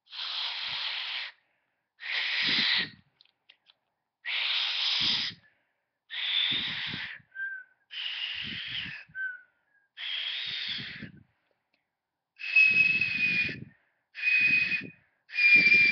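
Piece of plastic stretched tight and blown across with the lips: about nine short breathy blows of roughly a second each, mostly airy hiss at first, the last three sounding a clear, steady high-pitched whistle and loudest. It is kind of weird and high pitched.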